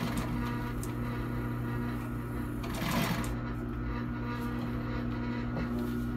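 Juki LU-563 walking-foot industrial sewing machine standing between seams, its motor humming steadily, with a brief burst of stitching about three seconds in.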